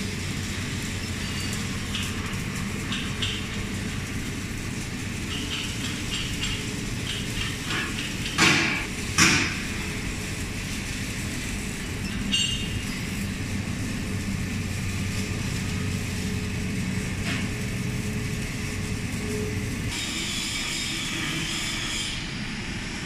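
Steady mechanical drone of industrial machinery with a low hum, broken by two loud sharp knocks about eight and nine seconds in and a smaller one a few seconds later.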